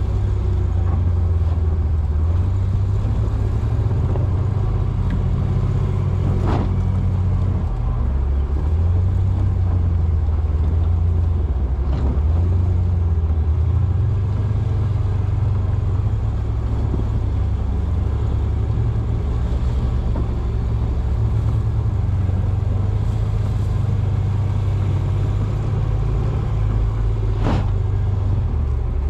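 The 2008 Jeep Wrangler Unlimited's 3.8-litre V6, breathing through Gibson headers and a full exhaust, runs with a low, steady rumble whose pitch rises and falls with the throttle as the Jeep drives slowly through snow. Three sharp knocks cut in: about six and a half seconds in, at about twelve seconds, and near the end.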